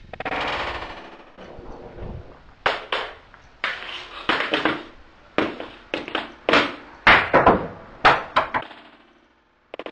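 Ice hockey stick blade striking a puck on a shooting pad, with shots hitting the garage's back: a longer crash in the first second, then about fifteen sharp clacks, some in quick pairs, each with a short echo.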